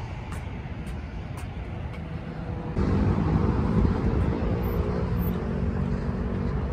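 Outdoor city traffic noise. About three seconds in it changes suddenly to a louder, steady low rumble with a held hum, like a vehicle engine running close by.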